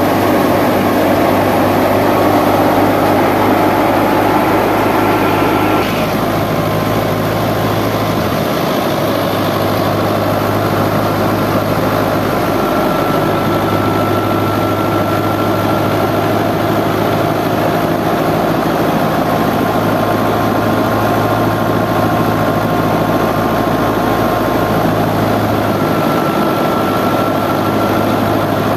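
Fiat tractor's engine running steadily under load as it drives a wheat thresher through the PTO, mixed with the rushing whir of the threshing machine. The rushing noise thins out about six seconds in, leaving the engine's steady hum.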